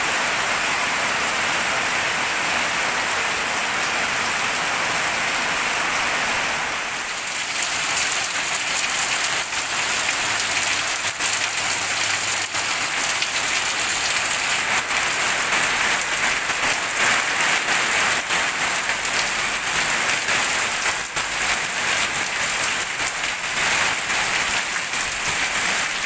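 Heavy rain falling steadily. About seven seconds in it dips briefly, then returns as a denser, sharper patter of drops striking hard ground and leaves.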